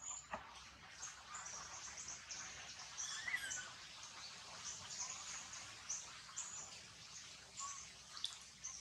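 Faint outdoor ambience of small birds giving scattered short, high chirps, with one brief falling call about three seconds in.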